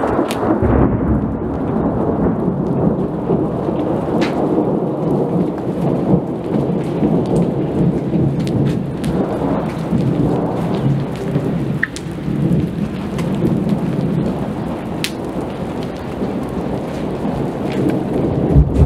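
Thunderstorm: thunder rumbling almost without pause over steady rain, with a few sharp ticks now and then.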